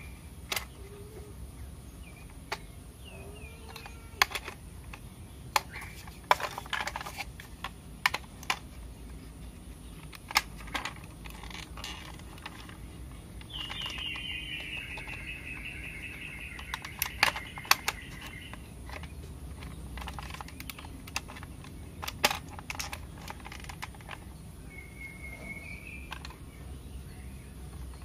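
Hard plastic parts of a battery-operated toy cow being handled and fitted together: scattered sharp clicks and knocks. A bird calls for several seconds about midway, and again briefly near the end.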